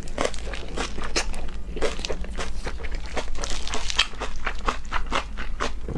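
Close-miked mouth sounds of someone chewing food: a quick, irregular run of small clicks and smacks.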